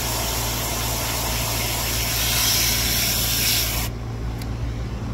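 Garden hose spray nozzle rinsing a reusable cotton gauze air filter: a steady, loud hiss of water jetting onto the pleated filter. It drops away about four seconds in.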